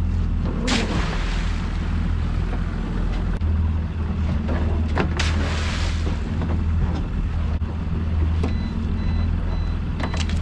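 Outboard motor running steadily as a small boat motors across choppy sea, with water rushing past the hull; the rush swells louder twice, about a second in and again around five seconds in.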